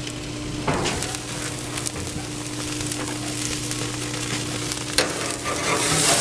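Steaks sizzling on a hot grill: a steady hiss dotted with small crackles and pops, over a faint steady hum. Near the end the sizzle swells as a metal spatula slides under a steak.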